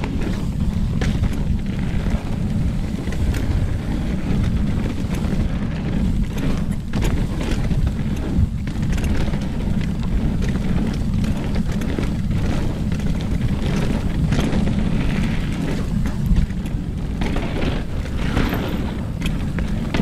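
Mountain bike riding down a dirt trail: a steady, loud low rumble of wind buffeting the chest-mounted camera's microphone and tyres rolling over the ground, broken by frequent short knocks and rattles as the bike hits bumps.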